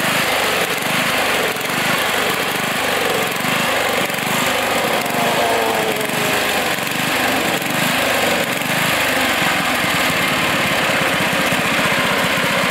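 Toro riding lawn mower's small engine running hard as the mower is driven across loose sand, its note wavering up and down as the load changes.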